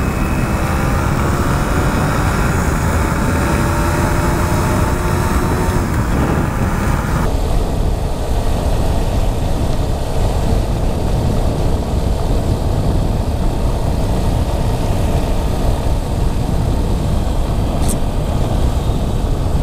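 Motorbike riding at speed: constant wind rush on the microphone over the running engine. For about the first seven seconds a whining note with several pitches drifts slowly, then cuts off abruptly, leaving the low rumble.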